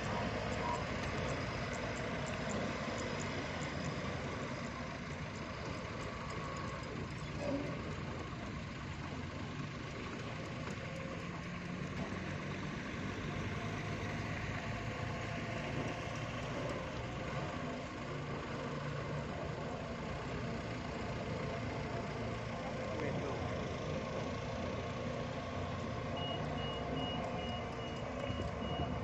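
Forklift engine running steadily as it carries stacked lightweight concrete blocks, with a road roller's engine working alongside. Near the end, a reversing alarm sounds a quick run of short evenly spaced beeps.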